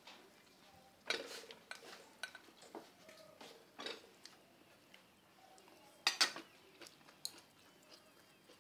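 Wooden chopsticks clicking and scraping against ceramic bowls and plates in scattered light knocks, the loudest a quick pair about six seconds in.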